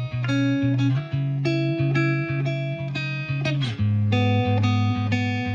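Intro music: a plucked guitar playing a steady, repeating chord pattern.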